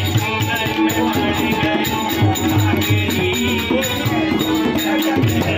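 Kumauni baithak Holi music: tabla drums played in a fast, dense rhythm over held harmonium notes, with voices singing along.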